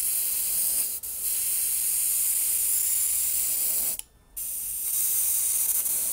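Airbrush spraying paint onto paper: a steady high hiss of air through the nozzle, broken twice by short stops, very briefly about a second in and for under half a second just after four seconds in.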